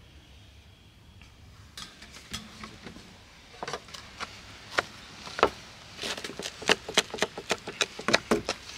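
A knife cutting through a crisp, charred wood-fired pizza crust on a stone tray: scattered sharp crunches and clicks at first, then quicker, denser crunching over the last three seconds.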